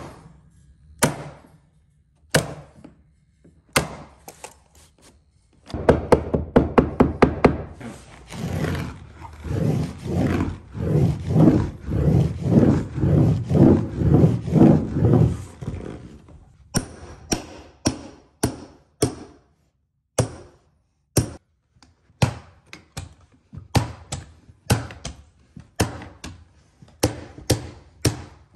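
Staples being driven into a carpet stair runner and padding: sharp single shots, a fast run of them about six seconds in, then a long noisy stretch that pulses a few times a second, then regular single shots about once or twice a second.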